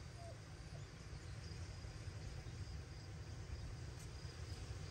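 Faint background noise with a low rumble and a few faint, short high chirps.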